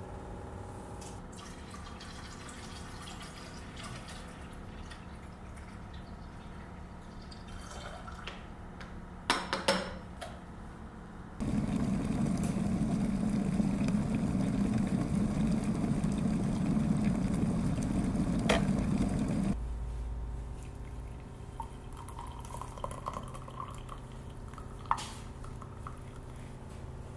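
Kitchen sounds of coffee-making with a glass electric kettle: a faint steady hum, a few knocks about nine seconds in, then about eight seconds of loud, steady rushing water in the kettle that starts and stops abruptly, followed by a thin trickle of hot water poured into a ceramic mug.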